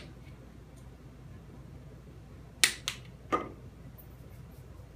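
Three short, sharp knocks close together about two and a half to three and a half seconds in: a small bottle and a salt shaker knocked down and handled on a kitchen countertop as vanilla and salt go into a mixing bowl.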